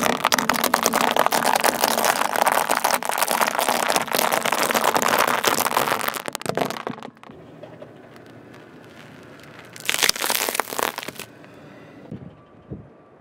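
Dry tube pasta being crushed under a slowly rolling car tyre: a dense run of cracking and crunching that lasts about six and a half seconds. A second, shorter burst of crackling comes about ten seconds in.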